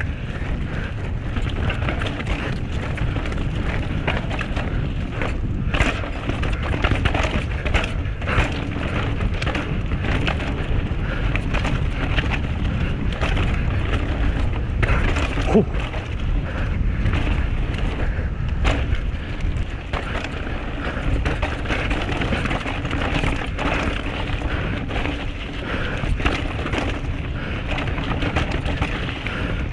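A 2021 Canyon Sender CFR downhill mountain bike descending fast, its tyres rolling and crunching over dry dirt, rocks and leaf litter, with frequent short knocks and rattles as it hits rocks. Wind rumbles on the bike-mounted microphone throughout.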